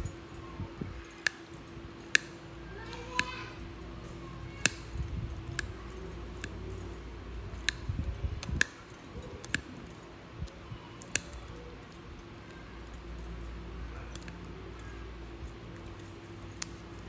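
Nail nippers snipping through a thickened, crumbling toenail, a sharp click with each cut every second or so, over a steady faint hum.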